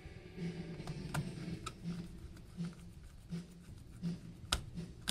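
Light clicks and taps of a small Phillips screwdriver and gloved hands on the plastic shell of a DJI Mini 2 drone as the frame screws go back in, with one sharper click about four and a half seconds in.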